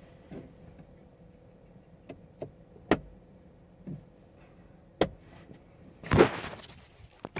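Several sharp clicks and knocks, then a louder rustling clatter about six seconds in.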